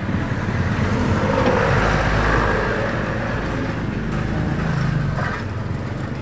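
Road traffic passing close by: a steady vehicle rumble that swells about two seconds in and then eases.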